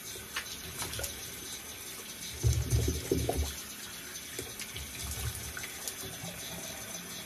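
A water tap running steadily into a sink, with a burst of louder splashing about two and a half seconds in that lasts about a second.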